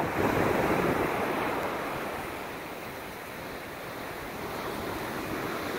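Ocean surf washing up a sandy beach: the noise of a wave running up the sand is loudest at the start, eases off through the middle and swells a little again near the end.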